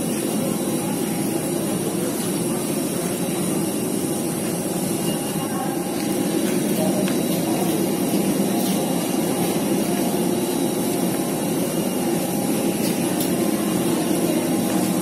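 Steady drone of jet aircraft engine noise carried across from the apron, with faint high whining tones over it. It grows a little louder about six seconds in.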